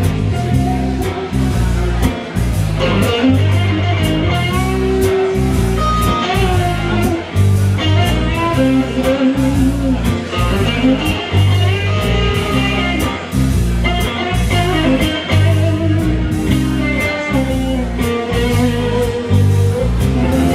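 A blues-rock band plays an instrumental break with no singing. A guitar carries the lead with bending notes over a repeating bass line and steady beats.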